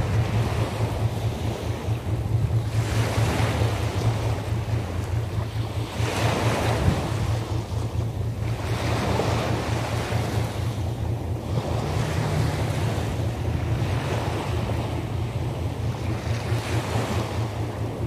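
Sea waves breaking and washing onto the shore at night, the surf swelling every few seconds over a steady low rumble.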